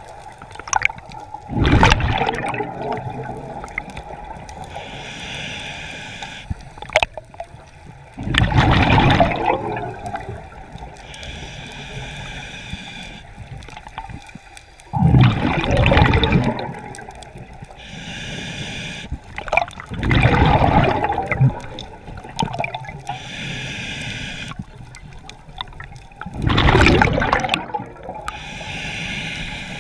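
Scuba diver breathing through a regulator underwater: about every six seconds a loud rush of exhaled bubbles, with a quieter hiss of the inhale between, five breaths in all.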